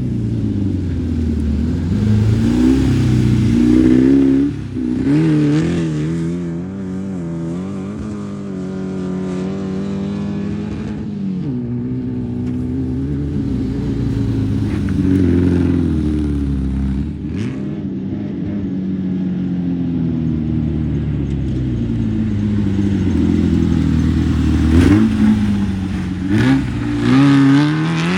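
Air-cooled Volkswagen-engined off-road race cars running hard, their engine note repeatedly rising and falling as they rev and pass.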